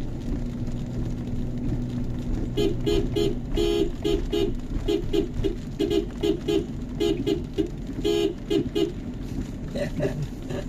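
A horn tooting in many short beeps, in quick clusters of two to four, for about six seconds, starting a few seconds in. Under it is the steady low rumble of a car driving on a wet road.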